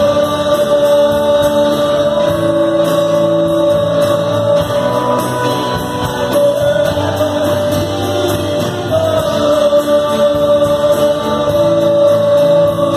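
Live rock band playing on electric guitars, bass and drums, with singers holding long sung notes over the band.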